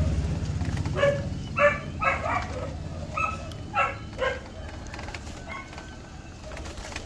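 A dog barking repeatedly, about eight short barks spread over five seconds. A vehicle engine's rumble fades away in the first second.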